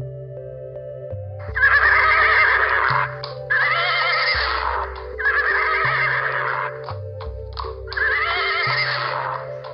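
A horse whinnying four times, each call one to one and a half seconds long with a quavering pitch, over ambient background music of slow sustained notes and a shifting bass.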